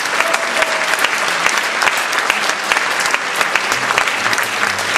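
Theatre audience applauding: dense, steady clapping from many hands after a ballet performance.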